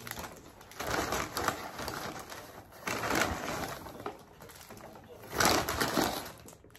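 Brown paper McDonald's bag rustling and crinkling as hands rummage inside it, in three bursts, the loudest near the end.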